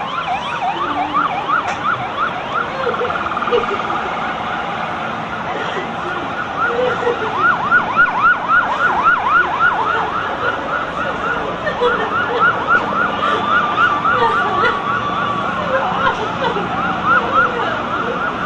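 Emergency vehicle sirens going at once, mostly in a fast yelp of about four to five rising-and-falling sweeps a second, with a longer held wail that drops away about fifteen seconds in.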